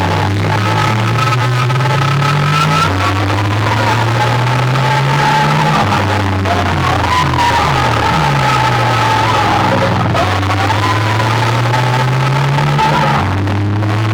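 Loud DJ music played through a competition sound system. Deep bass notes slide slowly upward, starting again every few seconds, under a sustained melody line.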